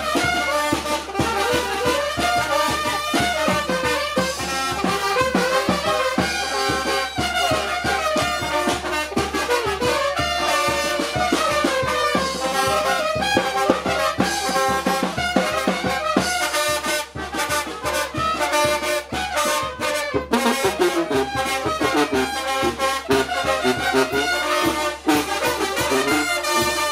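Brass band music, trumpets and trombones playing a lively dance tune over a steady beat.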